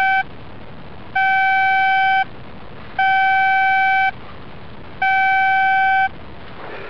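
Metal detector giving its target tone: a steady mid-pitched beep about a second long, repeating at even two-second spacing as the coil is swept back and forth over buried metal. Three full beeps, with the end of an earlier one at the start.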